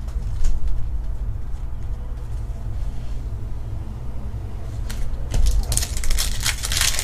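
Foil trading-card pack torn open and crinkled about five seconds in, over a low steady hum.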